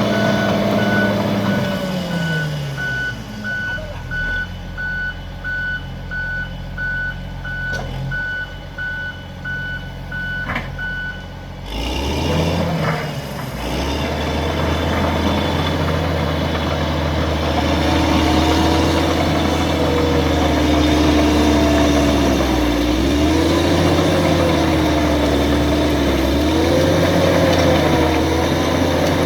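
HBXG SD5K bulldozer: the diesel engine drops in speed while the reversing alarm beeps at a steady, regular rate. The beeping stops about twelve seconds in, and the engine picks up again and keeps running, with a pitch that wavers up and down under changing load.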